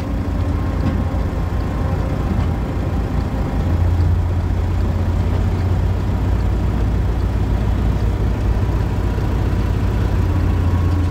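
Volkswagen Caravelle T6's 2.0 TDI four-cylinder turbodiesel idling steadily with a low hum, growing a little louder about three and a half seconds in.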